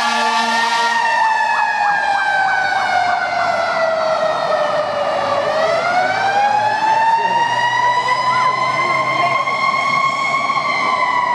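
Fire truck siren wailing: its pitch sinks slowly over about five seconds, climbs again and holds high, then starts to fall near the end. A second, faster pulsing tone sounds over it during the first few seconds.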